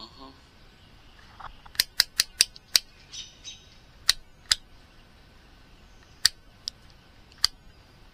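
Rotary selector dial of a handheld digital multimeter clicking through its detents as it is turned to a resistance range. About ten sharp clicks come in uneven runs: a quick run of five about two seconds in, then a pair, then single clicks further apart.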